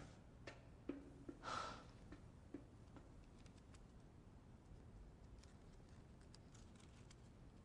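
Near silence: a soft exhale about a second and a half in, then faint crackles of paper being folded into an origami crane.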